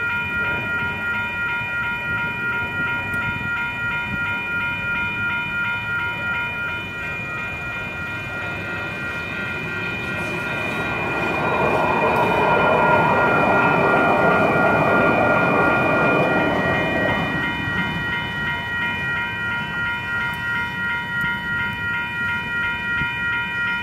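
Electronic railroad crossing bells ringing in a fast, even, repeating rhythm. From about ten seconds in, a Siemens Duewag U2A light rail train rolls through the crossing; its wheels and running gear grow louder than the bells for several seconds, then fade.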